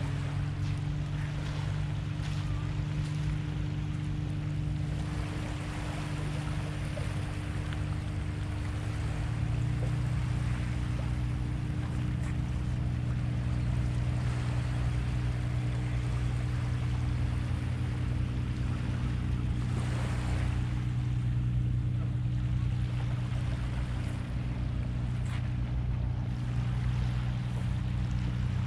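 A distant boat engine running with a steady low drone, over small waves lapping at the water's edge.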